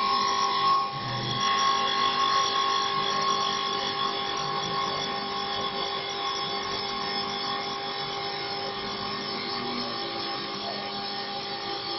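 Mini CNC wood-turning lathe running, giving a steady whine of several tones over a hiss.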